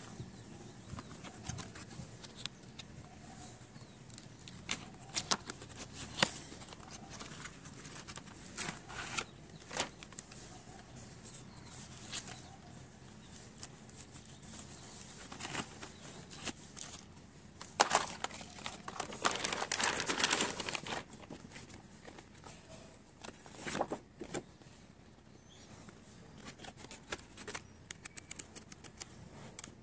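Handling noise from a cardboard oil pastel box and its clear plastic tray: scattered clicks and taps, with a longer stretch of rustling a little past the middle. Paper pages flap and tick near the end.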